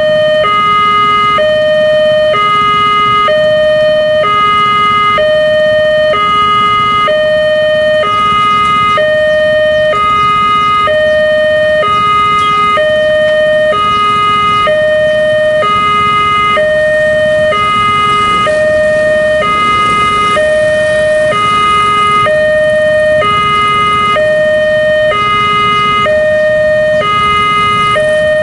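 Railway level crossing's electronic warning alarm sounding a steady two-tone pattern, a higher and a lower tone alternating about once a second, signalling that a train is approaching. Idling motorcycles rumble faintly underneath.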